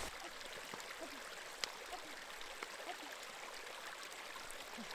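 Small snowmelt stream trickling and gurgling over stones down a forest trail, with a faint click about a second and a half in.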